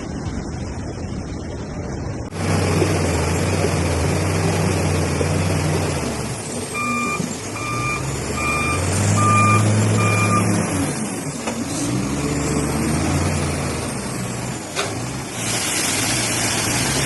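A heavy vehicle's engine running, its pitch rising and falling, starting abruptly about two seconds in. Midway through, a reversing alarm beeps five times, about once a second.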